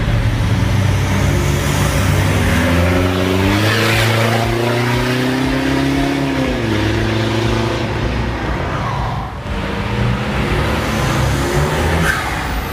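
Exhaust note of a Mitsubishi Triton Commonrail diesel pickup through a full stainless steel exhaust system, climbing in pitch under acceleration for a few seconds, then dropping off about six and a half seconds in and running on steadily.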